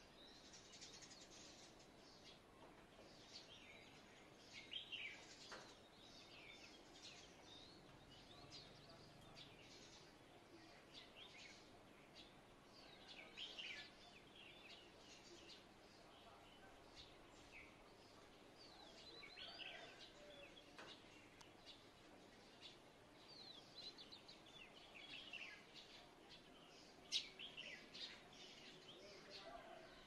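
Faint songbird chirping: many quick, high chirps and short sweeping notes in loose clusters, over a low steady background hiss, with one sharper, louder chirp near the end.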